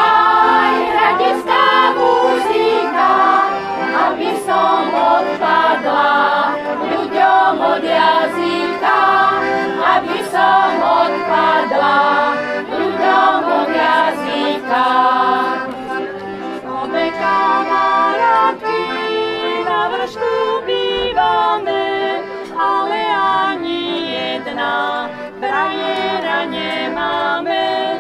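Women's choir singing together, accompanied by a piano accordion.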